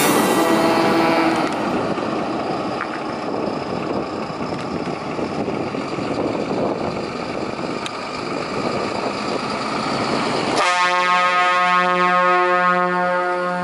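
An approaching Mercedes-Benz truck's engine and tyre noise. About ten and a half seconds in, its air horn blares: a steady blast of several pitches at once, held to the end.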